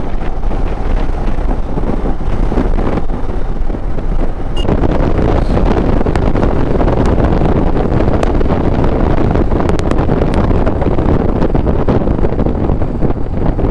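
Wind rushing over the microphone of a rider on a moving Royal Enfield Himalayan motorcycle, with the bike's running and road noise underneath. It gets louder about four and a half seconds in.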